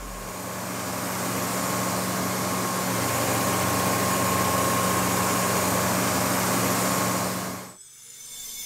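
Heavy machinery of a Plasser & Theurer RM 900 VB ballast cleaning train running steadily, a low engine hum with a faint higher whine. It swells over the first few seconds and cuts off abruptly near the end.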